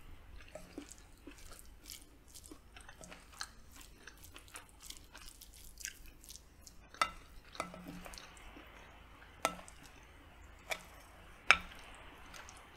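Wooden spoon and wooden fork working through rice, sausage and beans on a glass plate: a steady run of small clicks and scrapes, with several sharper taps of wood on the glass in the second half, the loudest near the end. Close-miked chewing sounds between them.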